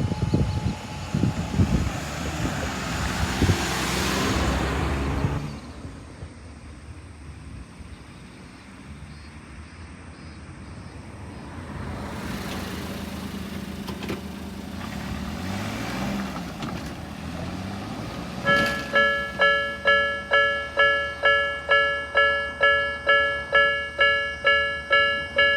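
A Jomo Electric Railway train runs over the level crossing and fades away about five seconds in; a quieter road vehicle passes in the middle. About eighteen seconds in, the crossing's electronic Nikko-type warning bell starts, ringing a bright repeating ding about twice a second, the signal of another train approaching.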